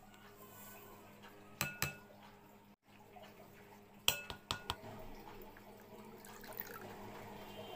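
A measuring cup knocked against the rim of a glass mixing bowl to empty out dry ingredients: short ringing clinks, two about a second and a half in and three more around four seconds in.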